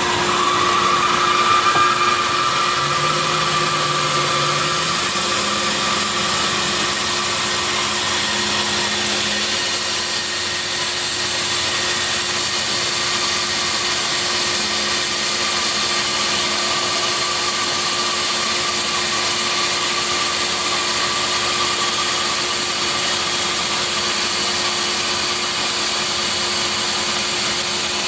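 Bandsaw running steadily, its blade resawing a half-inch slab from a board of tiger (curly) maple for knife handle stock.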